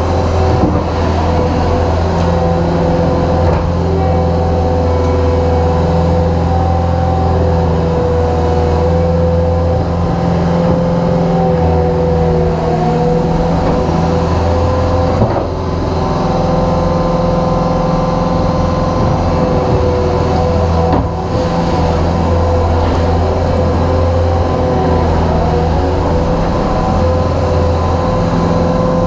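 Cat 289D compact track loader's diesel engine running steadily at working speed while it tracks over and spreads gravel, with a constant whine over the low engine hum.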